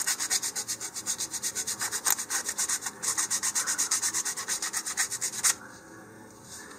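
Sandpaper rubbed by hand in rapid back-and-forth strokes, about six a second, shaping the edge of a paper-covered balsa fin hardened with super glue. The strokes stop about five and a half seconds in.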